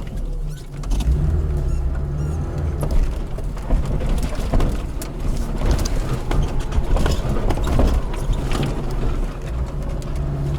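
Lada Niva driving off-road, its engine running steadily under load, with many irregular knocks and rattles over rough ground.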